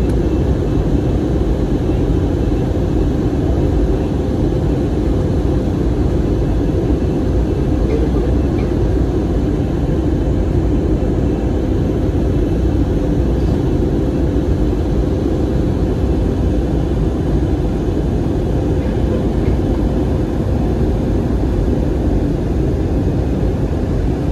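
Steady cabin noise of an Airbus A320neo in flight: a low rumble of airflow and its CFM LEAP-1A engines, with a faint steady hum.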